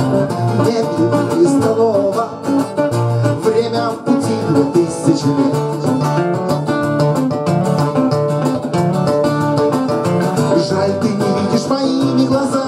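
Two acoustic guitars playing an instrumental passage between verses, picked notes over chords.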